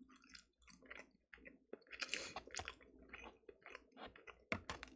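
Faint chewing with small irregular mouth clicks, over a low steady hum; a slightly louder patch comes about two seconds in.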